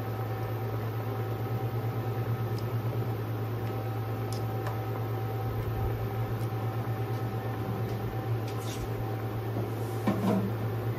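Steady electric hum and fan noise from an induction cooktop heating a wok of coconut milk, with a few faint clicks and a soft knock near the end.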